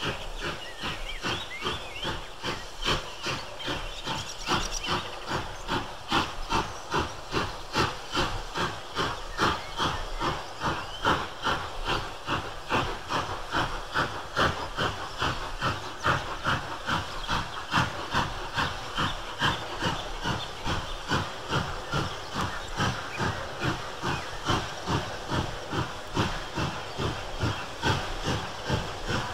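Ex-LNER B1 class 4-6-0 steam locomotive No. 61341 working a train, its exhaust beating in a steady, even rhythm.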